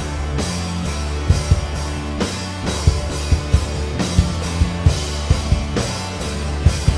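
Rock band playing an instrumental passage: drum kit with bass drum and a cymbal struck about once a second, over steady bass and guitar.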